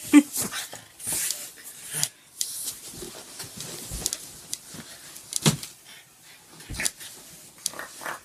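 A pug playing rough on a bed, making a few short play noises amid the rustle of blankets being dug at and tossed about.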